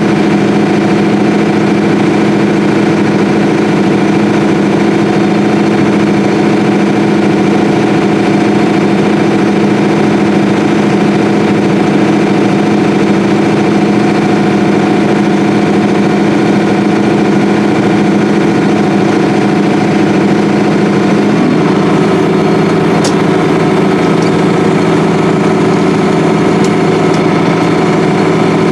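Combine harvester running steadily in the field, a continuous machine drone with several steady tones. Its tone shifts slightly about three-quarters of the way in, and there are a couple of faint clicks near the end.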